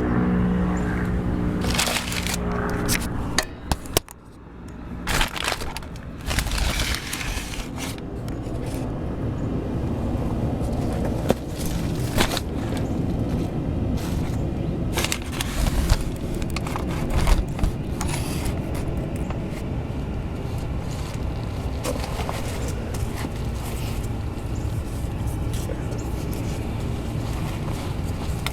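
Background music ends about three seconds in. It is followed by scattered metal clinks, knocks and scrapes of hand tools on car parts over a steady mechanical noise.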